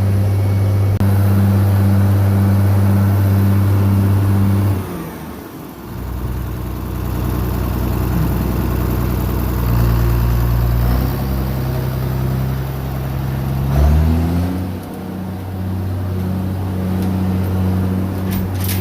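Farm tractor engine running steadily, throttled down about five seconds in and revved back up near the fourteen-second mark.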